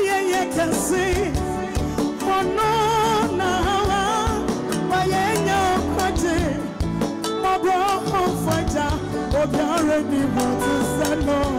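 A woman singing gospel live into a microphone with wide vibrato, backed by a band with electric guitar and drums.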